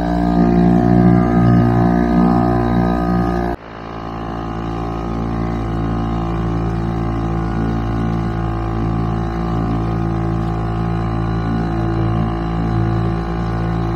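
Small outboard motor on an inflatable dinghy running steadily at cruising speed, a continuous drone. It breaks off abruptly about three and a half seconds in and comes straight back at the same pitch.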